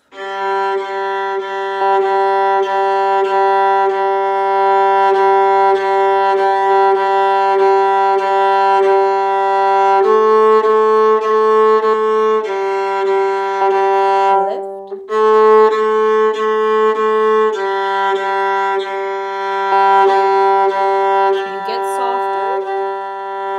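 Viola playing long sustained bowed notes: one note held for about ten seconds, then a step higher and back down, twice.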